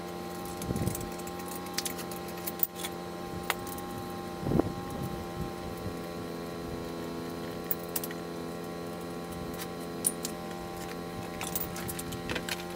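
Scattered metallic clinks and taps of a wrench working the top nut of an old rear shock absorber and of small parts being set down on concrete, with a louder knock about four and a half seconds in, over a steady low hum.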